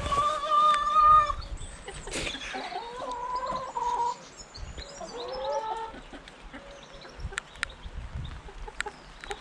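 Hens calling, a few drawn-out calls in the first six seconds, the first held for about a second, then a handful of sharp ticks.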